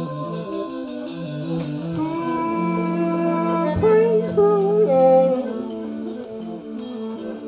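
Live big band music: a stepping bass line and guitar under a sung melody that holds a wavering note about four to five seconds in, over a long sustained low note.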